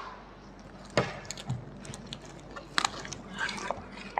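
Scattered taps, clicks and crinkles from handling a plastic bottle and sticky tape, with a sharp knock about a second in.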